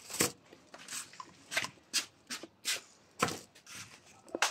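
Brittle shells of sweet tamarind pods cracking as they are broken and peeled by hand: about ten sharp, irregular snaps.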